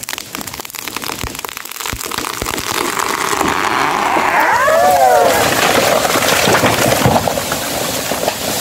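A cut manii tree (Maesopsis eminii) giving way and falling: sharp cracks of splitting wood, then a long swelling rush and crash as the trunk and crown come down through bamboo and foliage, loudest about five seconds in.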